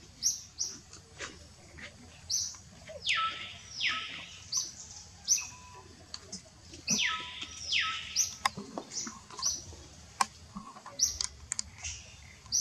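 High-pitched animal calls: short chirps about once a second, and twice a pair of louder calls that slide down in pitch, with a few scattered clicks.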